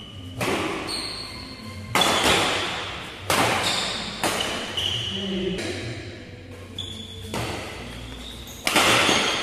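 Badminton rackets striking a shuttlecock in a doubles rally, a string of sharp hits about every second or so, each echoing in a large hall.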